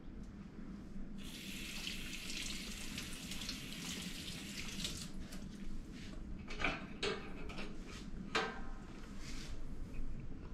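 Kitchen faucet running into a stainless-steel sink for about four seconds while a strawberry is rinsed, then shut off. A few short knocks and clinks follow as a knife is taken from the over-the-sink drying rack.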